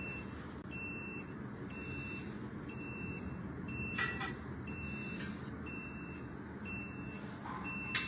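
Solax Transformer folding mobility scooter folding itself by remote: its electric folding motor runs with a steady low hum while a high electronic warning beep repeats at an even pace. A couple of short clicks come from the folding mechanism, one midway and one near the end.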